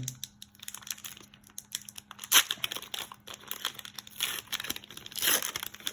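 Foil wrapper of a Pokémon card booster pack crinkling and tearing as it is opened by hand, with irregular crackles, the loudest about two seconds in and again near the end.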